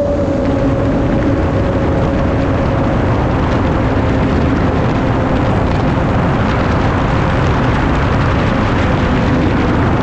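Twin electric motors and propellers of a Mini Drak flying wing in flight, a steady hum that drifts slightly lower in pitch, under heavy rushing wind noise on the onboard camera's microphone.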